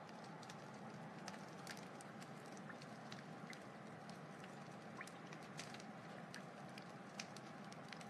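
Wood fire crackling: irregular sharp pops and snaps, several a second, over a soft steady hiss.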